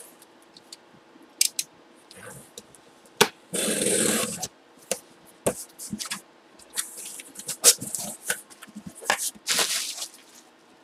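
Cardboard shipping box being opened by hand: packing tape torn and flaps pulled back, with sharp cardboard clicks and a longer tearing rustle about four seconds in. Plastic bubble wrap rustles near the end.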